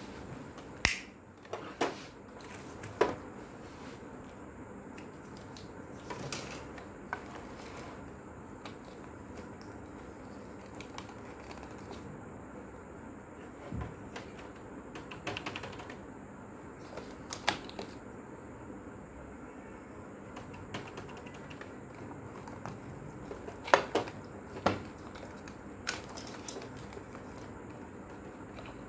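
Electric typewriter mechanism running, with irregular single clacks of the striking parts every second or few over a steady running noise; the loudest strikes come about three-quarters of the way through.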